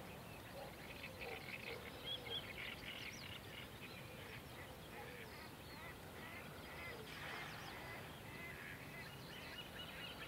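Many wild birds calling over each other, as on a wetland: lots of short, high calls overlapping, with lower gliding calls among them.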